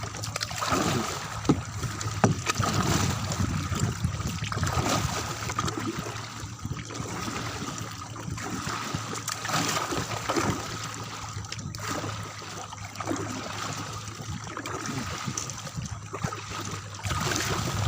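Kayak paddle dipping into the water, with irregular splashes and trickling water around the kayak. A faint steady hum runs underneath.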